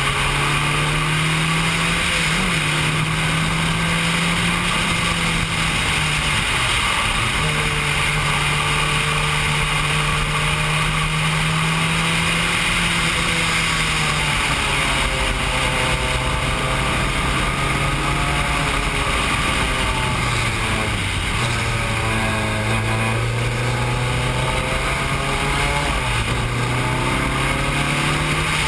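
Formula 3 single-seater's engine heard from the cockpit, running at speed. Its pitch steps up and down through gear changes and dips for the corners, most deeply a little past two-thirds of the way through. A steady hiss of rushing air lies over it.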